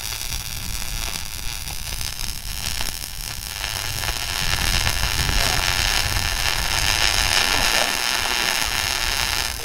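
Electric arc welding on steel: a steady crackle and sizzle from the welding arc, holding on without a break and growing a little louder about four seconds in.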